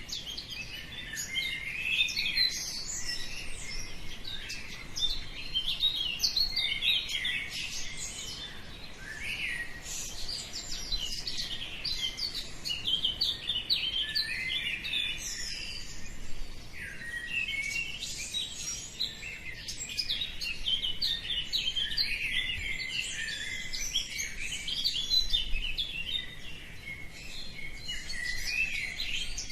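Dawn chorus of many small birds chirping and twittering at once, their short high calls overlapping without a break.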